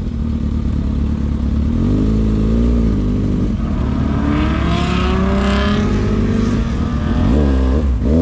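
Car engines revving hard, their pitch rising and falling in repeated blips. Partway through, one engine's pitch climbs steadily as a car accelerates.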